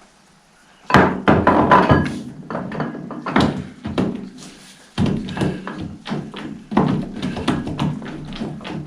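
Irregular metal knocks and clunks from the tractor's final-drive parts being worked by hand while the shaft is taken out, starting about a second in.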